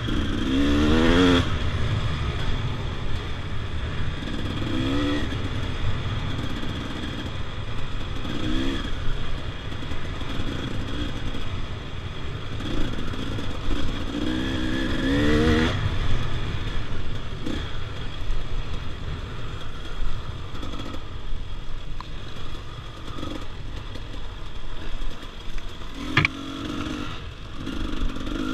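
Dirt bike engine running while being ridden, the revs rising in short bursts several times between steadier stretches, with a sharp knock near the end.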